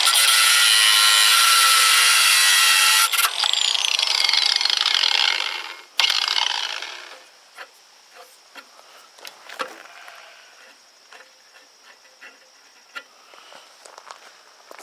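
Power tool cutting and grinding down a welded steel piece on a miter saw's release lever. It is switched off about three seconds in, its pitch falling as it spins down, then runs again briefly twice. After that only light handling clicks remain.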